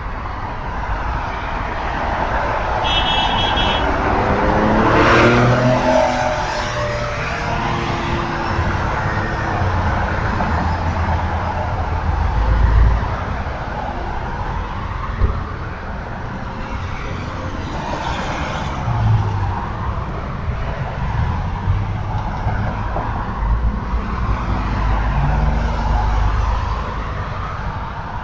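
Street traffic: cars passing by one after another with steady tyre and engine noise. The loudest pass comes about five seconds in, its engine note falling as it goes by.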